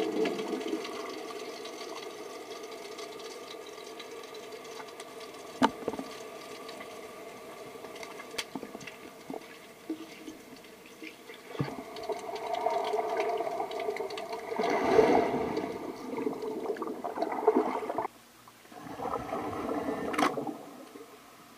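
Water in a swimming pool heard underwater: muffled swishing and bubbling, louder in the second half, with a swell of air bubbles from a swimmer breathing out near the end.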